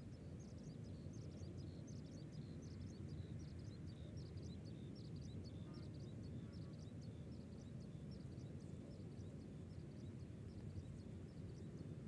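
Faint outdoor ambience: a steady low rumble with a continual stream of short, high chirps, several a second.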